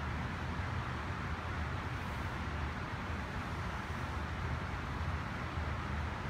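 Steady background room noise: a constant low hum with an even hiss over it, with no distinct strokes or clicks.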